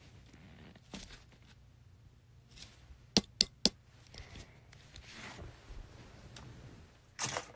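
Close-miked handling noises: three sharp clicks about a quarter second apart a little past the middle, then a short rustle near the end.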